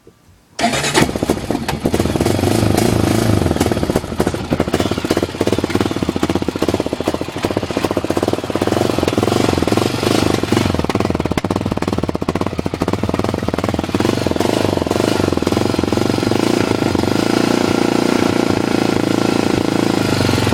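Honda TRX400EX ATV's single-cylinder four-stroke engine with its stock exhaust pipe, starting up about half a second in and then running steadily.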